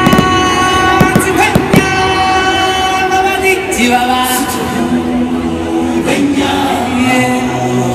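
Music with singing played loud, with a few sharp cracks about a second in, near two seconds and near four seconds.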